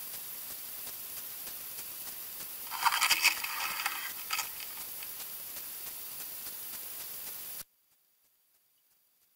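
Underwater camera's steady hiss, broken about three seconds in by a burst of scraping and knocking as something brushes against the camera housing. The sound then cuts off suddenly into silence.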